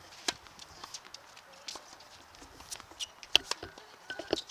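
Tennis rally on a hard court: a series of sharp pops and taps from the racket striking the ball and the ball bouncing, with shoe steps between.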